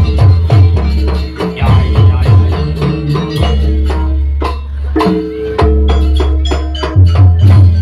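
Loud music with a heavy bass line under busy, rhythmic drum and percussion strikes.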